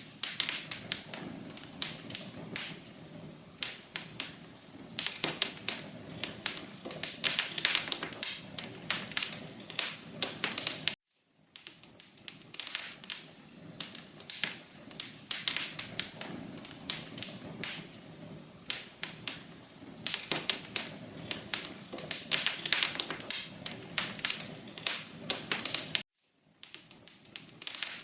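Wood fire crackling in a fireplace: a dense, irregular run of pops and snaps over a low hiss. The sound cuts out completely for a moment twice, about 11 and 26 seconds in.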